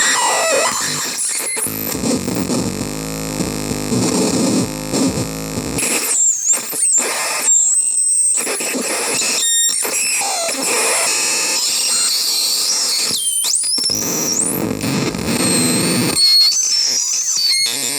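Harsh noise from a CMOS-based DIY noise synth: a dense distorted buzz that switches abruptly to shrill squealing pitch sweeps about six seconds in, with the low buzz returning briefly near the end.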